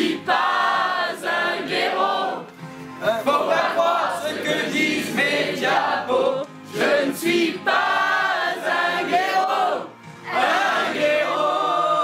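A group of voices singing a song together in chorus, with held notes near the end.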